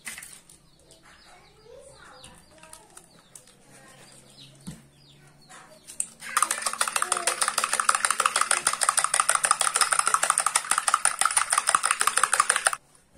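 Spoon beating egg and instant-noodle seasoning in a drinking glass: a fast, steady clatter of spoon against glass that starts about six seconds in and stops abruptly after about six and a half seconds. Before it, only faint handling sounds.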